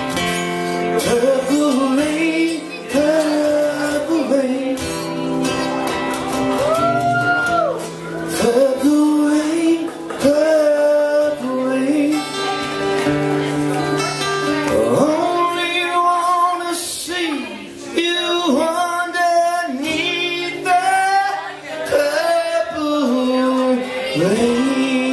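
Man singing live over a strummed acoustic guitar, in high, long-held notes that slide up and down.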